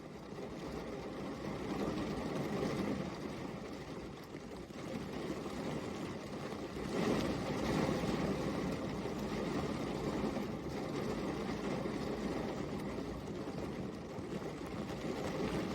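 Steady rain falling, a dense even hiss that swells a little louder about seven seconds in.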